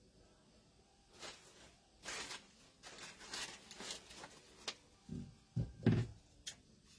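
Starched cotton fabric strips and wired ribbon rustling in short, scattered swishes as they are handled and arranged on a wreath, with a few soft bumps a little after the fifth second.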